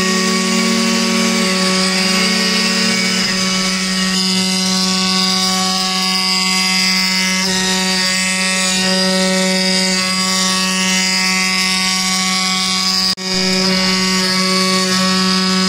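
CNC wood-carving machine's spindle running steadily while cutting wood, a constant whine over the noise of the cut, broken off for an instant about 13 seconds in.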